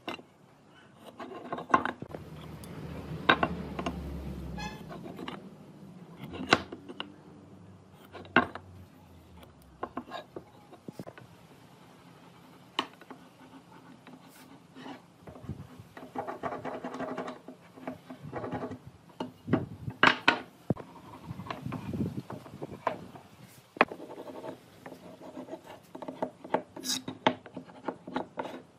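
Hand tools being handled on a wooden workbench: scattered knocks and clicks of tools set down and picked up, with scraping and rubbing as a marking gauge is drawn along a pine board.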